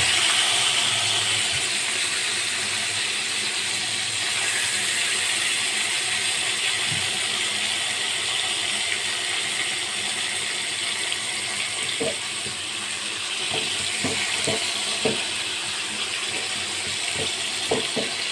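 Whole red fish frying in hot oil in a steel kadhai: a steady sizzle, loudest in the first second just after the fish have gone into the smoking-hot oil, with a few short clicks in the last few seconds.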